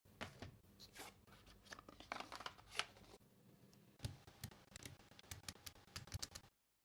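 Faint, irregular clicks and light clacks of mechanical keyboard switches, the CIDOO Mint linear switches being pressed or handled, in two runs of about three seconds each with a short gap between.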